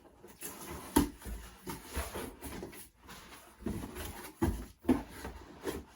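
A cardboard Nike box and its packaging being handled and opened: a series of short knocks and thuds with rustling in between. The loudest knocks come about a second in and again near the end.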